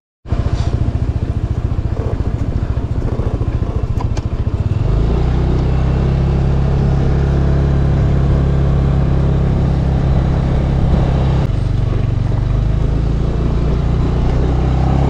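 Motor scooter engine running on the move, rising in pitch and getting louder about five seconds in, then holding steady.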